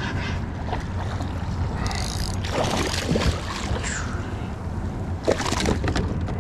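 A hooked fish splashing at the water's surface beside a kayak as it is brought in, in two bursts, about two and a half seconds in and again about five seconds in, over a steady rumble of wind on the microphone.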